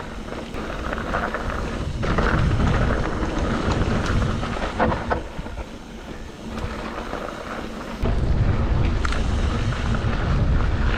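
Wind buffeting the action camera's microphone in gusts: a heavy rumble builds about two seconds in, eases off, then comes back hard around eight seconds in. A few sharp knocks are heard through it.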